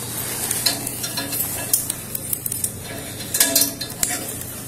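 Body-worn camera handling noise: scratchy rustling of clothing rubbing on the microphone, with scattered light clicks and clinks as the wearer moves.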